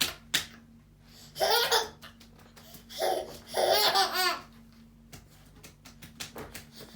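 A baby laughing in three short bursts, the longest about four seconds in.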